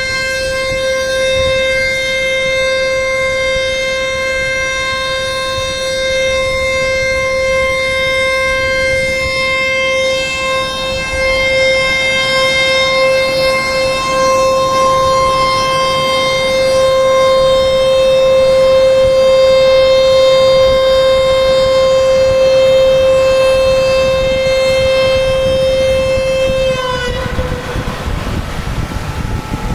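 Dam discharge warning siren sounding one long, steady tone, the warning that water is being released from the dam. Its pitch slides down as it winds off near the end.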